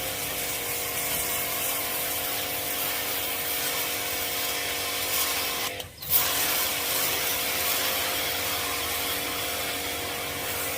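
Steady hiss of water spraying, with a constant hum underneath, while the dirty coop floor is washed down; it drops out for a moment about six seconds in, then resumes.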